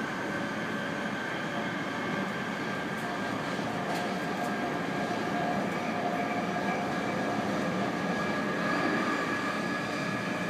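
London Underground Jubilee line train (1996 Stock) heard from inside the carriage while running at speed: a continuous rumble of wheels on track with a steady whine over it, growing slightly louder in the second half.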